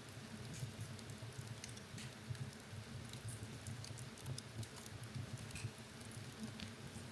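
Wood fire in a fireplace crackling, with irregular small pops and ticks over a steady low rumble of the flames.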